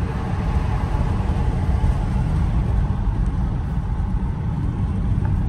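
Cabin noise of a Mercedes-AMG GLE 53 SUV driving with a window down: a steady low rumble of wind buffeting through the open window over tyre and road noise.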